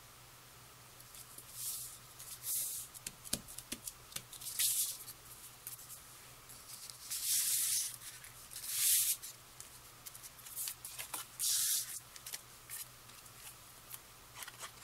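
Cardstock being slid and handled on a craft mat: about half a dozen short, papery swishes with quiet gaps between them.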